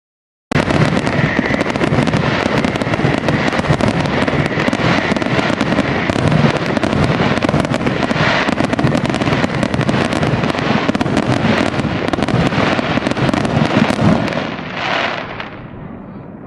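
Fireworks crackling: a dense, continuous stream of sharp pops that starts abruptly about half a second in and fades away near the end.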